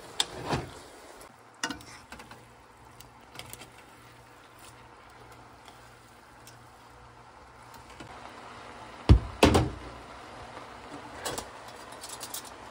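Tongs knocking against a frying pan as noodles are tossed and mixed: scattered clacks, the loudest two close together about nine seconds in.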